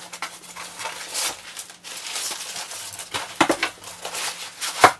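Rustling and crinkling of packed items and packaging being handled inside a nylon carrying bag, with a few sharper knocks about three seconds in and a louder one near the end.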